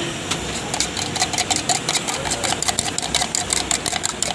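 Metal spoon beating eggs in a stainless steel mug: a rapid, even clinking of the spoon against the mug's sides, several strikes a second, each with a short metallic ring.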